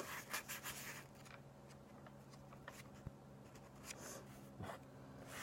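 Faint handling noises: a few light rustles and clicks near the start and again about four and a half seconds in, over a low steady hum.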